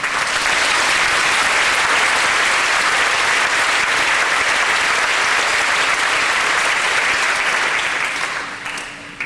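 An audience applauding steadily, starting at once and dying away near the end.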